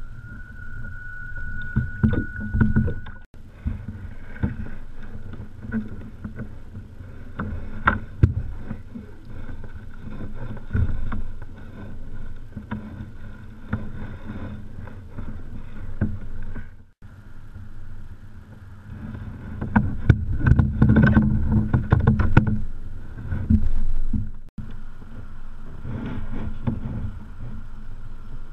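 Wind rumbling on a kayak-mounted action camera's microphone, with water against the hull and scattered knocks and clicks of handling on the kayak. The sound breaks off abruptly three times.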